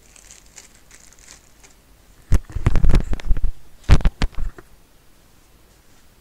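A tissue rustling, then a person blowing a runny nose into it: two loud blows, the first over a second long, the second shorter.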